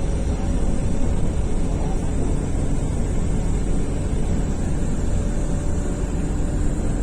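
Strong wind blowing across the microphone over floodwater: a steady, loud low rumble without breaks.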